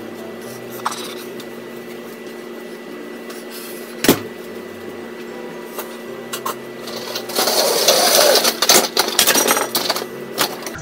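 A steady electrical hum with a faint high tone, broken by a single sharp click about four seconds in. Near the end come about three seconds of louder crinkling rustle and small clattering as objects are handled.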